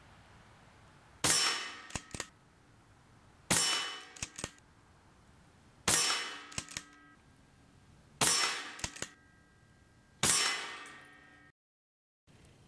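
Daystate Delta Wolf .25-calibre PCP air rifle fired five times, one shot roughly every two and a half seconds. Each shot is a sharp crack with a short ringing tail, followed by a couple of faint clicks.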